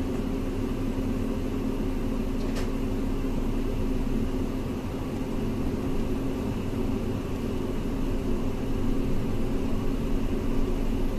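Bus engine running with a steady hum, heard from inside the passenger cabin, as the bus starts to pull away from the stop.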